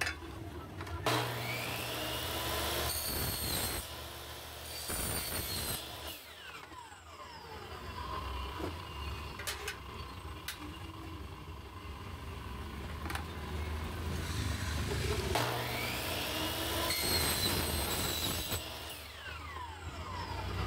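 Electric miter saw cutting aluminium window framing twice. Each time the motor starts up, the blade gives a high, metallic whine as it bites through the aluminium, and the motor winds down with a falling pitch. The first cut starts about a second in and the second about fifteen seconds in.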